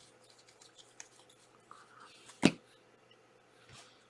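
Trading cards being handled: faint rustling and small ticks, with one sharp click about two and a half seconds in.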